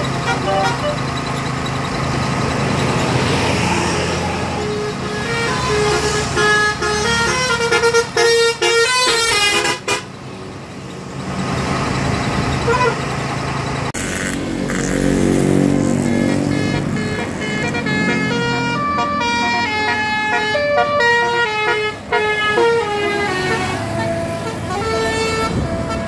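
Indonesian bus 'telolet' horn: a multi-tone air horn playing quick stepped melodies in repeated runs, with a vehicle engine underneath. The horn drops away briefly about ten seconds in, then starts up again about four seconds later.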